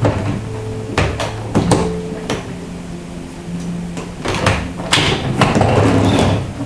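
Hard plastic parts of a cordless stick vacuum knocking and clicking as they are handled and fitted together: a run of sharp knocks, then a louder rustling scrape about five seconds in.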